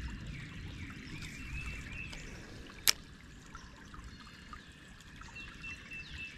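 Creek water trickling steadily, with faint high chirps throughout and one sharp click about three seconds in.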